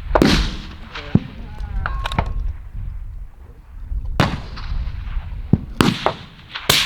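Precision rifle shots fired one at a time a second or more apart, each a sharp crack with a trailing echo, over a low steady rumble.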